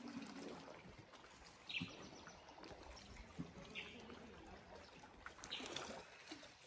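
Faint lake water lapping gently against a rocky shore, with a few short, faint higher sounds about every two seconds.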